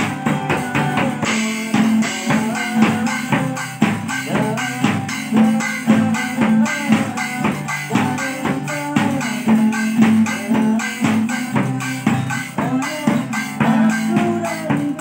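Band music with a steady drum-kit beat, tambourine and guitar.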